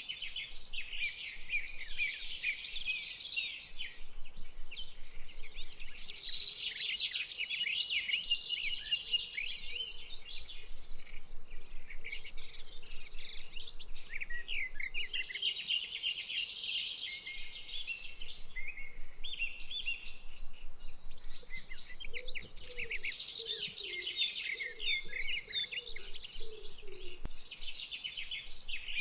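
A dense chorus of many songbirds chirping and trilling without pause, with a faint run of lower calls joining in briefly near the end.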